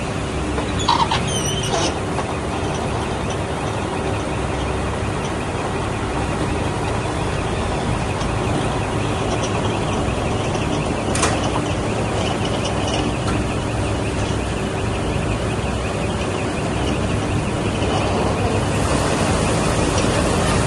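A machine engine running steadily. There is a brief high squeal about a second in and a sharp click a little past halfway.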